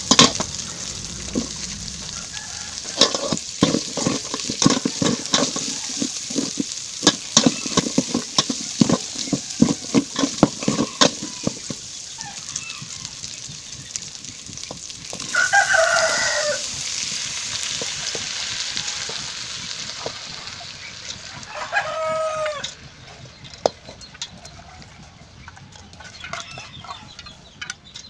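A metal spoon scrapes and clatters against an aluminium pot while browned garlic and meat sizzle in hot oil, for about the first twelve seconds. Later a rooster crows, once about fifteen seconds in and again around twenty-two seconds, and a third crow begins at the very end.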